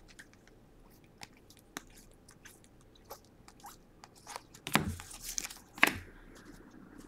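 Baseball trading cards being slid and flicked one by one from the front to the back of a hand-held stack: scattered light clicks and rustles, with two louder snaps about five and six seconds in.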